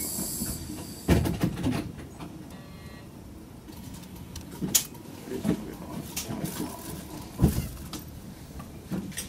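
Inside a stopped Chikuho Electric Railway train car: a hiss of air dies away just after the start, then a heavy thud comes about a second in, followed by scattered knocks and footsteps as a passenger walks through the car.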